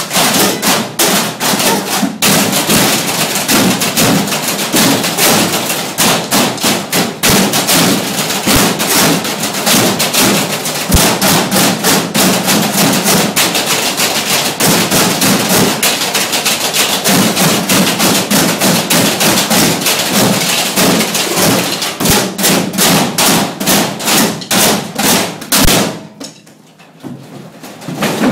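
A group drumming on galvanized metal trash cans and their lids with sticks, a fast, dense rhythm of metallic hits. Near the end the playing stops dead for a brief pause, then comes back in with a loud hit.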